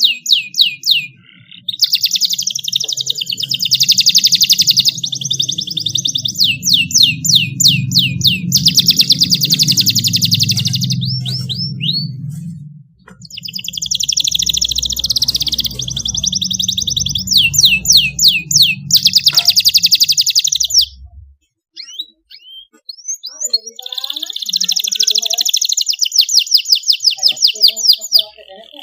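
Domestic canary singing long rolling song phrases: fast trills and runs of repeated sweeping notes, with short breaks about 12 and 22 seconds in. A low hum runs underneath until about two-thirds of the way through.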